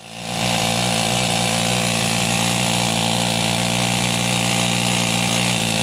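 Handheld power tool running steadily at a constant speed against a rusty axle; it fades in at the start and out at the end.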